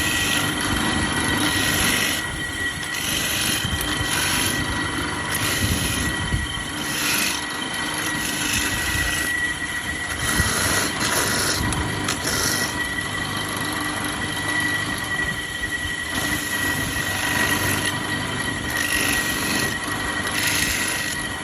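Motorized coconut grater running with a steady high whine, its spinning toothed head scraping coconut meat in repeated strokes about once a second.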